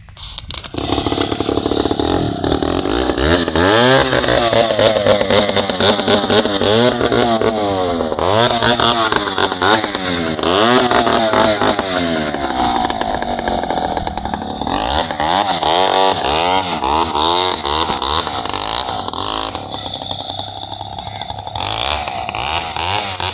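Chainsaw engine running loud, its pitch rising and falling over and over as it revs up and drops back while cutting a large log.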